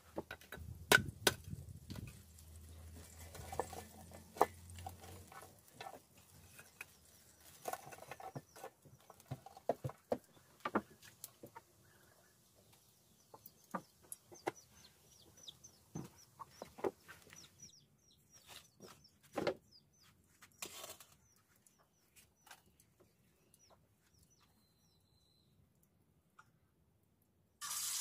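Chickens clucking now and then, with scattered sharp clicks and a run of faint high chirps from small birds. A steady loud hiss cuts in abruptly at the very end.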